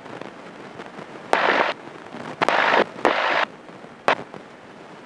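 Headset intercom audio in a small airplane: three short bursts of hiss that switch on and off sharply, each edged by a click, over a low steady background, then a single click near the end.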